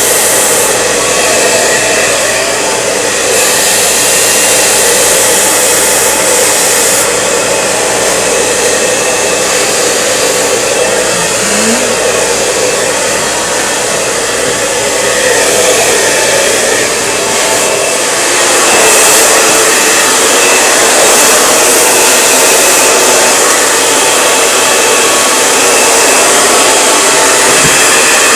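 Handheld hair dryer blowing steadily on high, drying long, still-damp hair. It gets a little louder about two-thirds of the way through.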